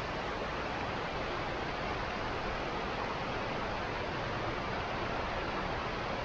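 Steady rushing of an underground waterfall falling down a cave wall.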